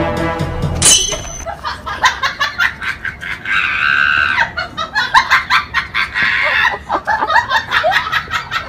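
A sharp hit about a second in as music cuts off, then a young woman shrieking and laughing in pulsing bursts after chopping a brick with the side of her hand.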